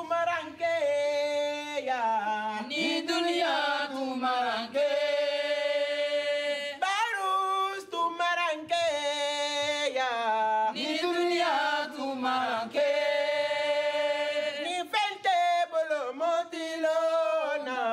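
A single voice singing unaccompanied, in a slow song of long held notes joined by sliding pitch.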